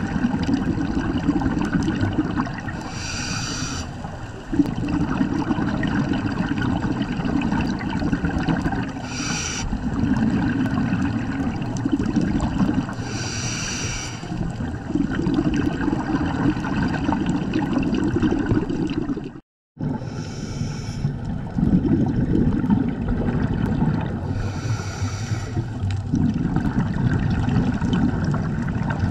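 A scuba diver breathing through a regulator underwater, heard inside a camera housing: the rumble and gurgle of exhaled bubbles alternating with a brief hiss of inhaled air about every five seconds. The sound cuts out for a moment about two-thirds of the way through.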